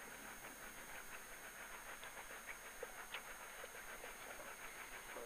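Faint steady hiss with a few scattered soft ticks; no engine or other clear source stands out.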